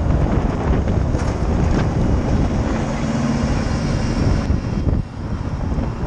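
Wind buffeting the microphone of a moving bicycle, with a motor vehicle's engine hum and tyre hiss passing by around the middle.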